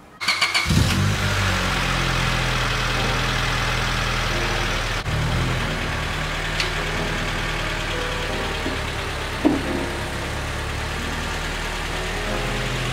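Honda Civic's 1.6-litre four-cylinder engine starting up in the first second and then idling steadily, with a change in its note about five seconds in and a single knock later on.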